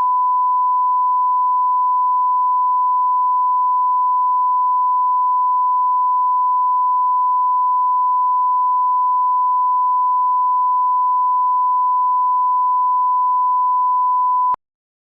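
Steady 1 kHz reference test tone, a single unchanging pure pitch, cutting off abruptly about half a second before the end.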